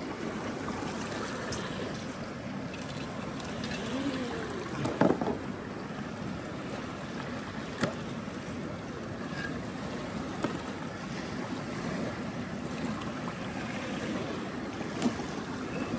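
Steady outdoor background noise like wind and water, with a few faint ticks and a brief distant voice about five seconds in.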